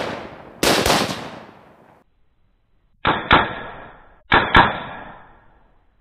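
Bushmaster XM15 E2S A2-style AR-15 firing 5.56 rounds: one loud shot with a long decaying echo, then after a short gap two quick pairs of shots that sound duller.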